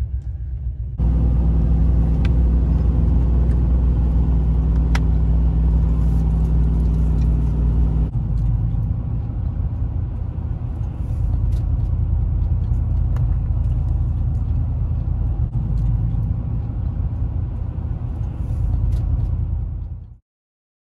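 Car cabin noise while driving: a steady low engine hum with road noise. About eight seconds in it changes to a rougher, noisier road rumble, which cuts off abruptly near the end.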